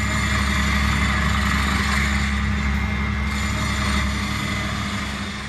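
A steady mechanical rumble with a low hum and a hiss over it, fading away near the end.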